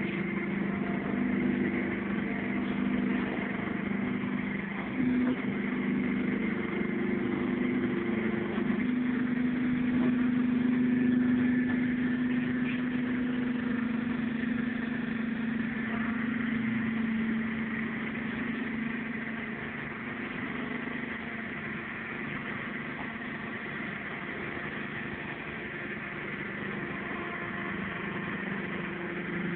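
Engine of a mobile tyre-cutting machine running steadily while a tyre is cut. It grows louder and a little higher about nine seconds in, then settles back quieter after about twenty seconds.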